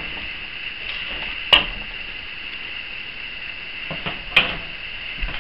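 A spatula lifting browned beef strips out of a cast-iron frying pan, with light scrapes and two sharp knocks, the first about a second and a half in and the second near the end, over a faint steady hiss.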